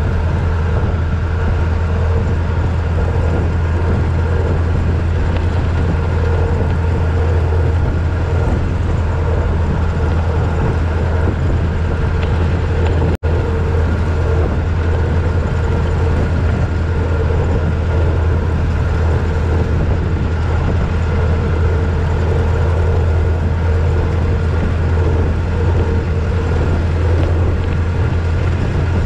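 1926 Ford Model T roadster driving at a steady speed on a gravel road: its four-cylinder engine running evenly under way, mixed with road and wind noise. The sound cuts out for an instant about thirteen seconds in.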